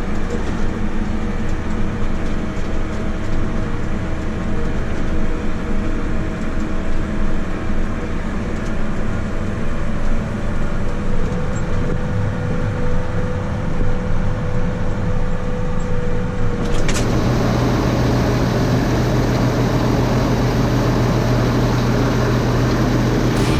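Large farm tractor running steadily under way, heard from inside the cab as a steady engine drone with a few steady whining tones. About 17 seconds in it cuts abruptly to a different, rougher machine noise with a strong low hum.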